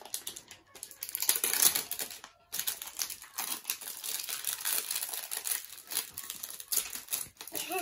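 Crinkly plastic wrapping being peeled and torn off Mini Brands capsule balls by two pairs of hands: a dense run of crackling with a short pause about two and a half seconds in.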